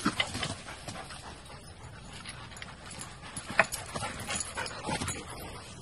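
Dogs scrambling over a wooden stile: a few sharp knocks of paws and bodies against the wooden rails, the loudest about three and a half seconds in, over a steady hiss.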